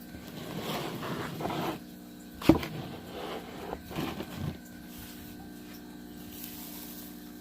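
Handling noises: rustling, then a single sharp knock about two and a half seconds in and a few lighter knocks, after which only a steady low hum remains.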